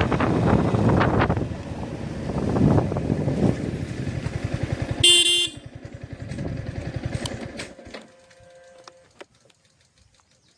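Motorcycle engine running, with a short horn honk about five seconds in; the engine then putters down and its sound drops away near eight seconds.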